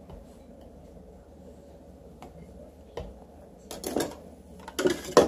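A few light knocks and clatters of kitchen containers and a plastic lid being handled on a countertop, one about three seconds in and a cluster in the last two seconds.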